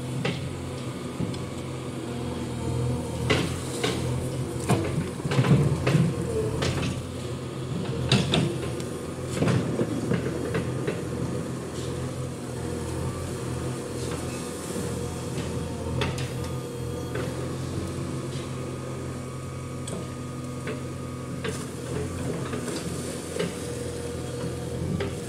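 JCB backhoe loader's diesel engine running steadily while the backhoe arm digs in wet mud, with intermittent metallic knocks and clanks from the bucket and arm, most of them in the first ten seconds.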